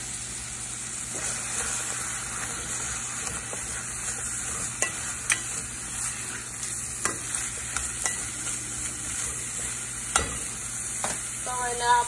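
Apple slices sizzling in melted butter in a stainless steel saucepan, stirred with a wooden spoon that knocks against the pot a few times.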